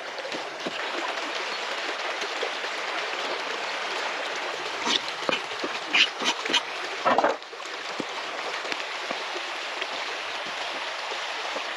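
Stream running steadily, with a brief cluster of sharp knife taps and a scrape on a wooden cutting board about halfway through, as diced tomato is swept off the board into a wooden bowl.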